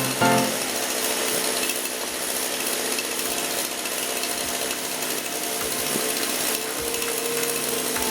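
Power saw on a homemade log-bucking machine cutting through a log into firewood rounds: a steady, rough sawing noise.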